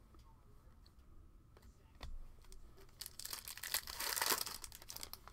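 Foil trading-card pack wrapper being torn open and crinkled in the hands, a dense crackling burst for about two seconds near the end, after a few light taps.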